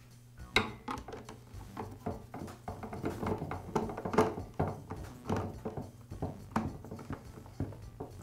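Chainsaw's plastic top cover being seated and its screws driven in with a hand screwdriver: a run of light, irregular clicks and taps.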